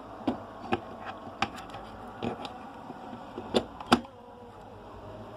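Hands working a WLAN repeater: about six sharp clicks and knocks, irregularly spaced over the first four seconds, over a steady faint buzzing hum.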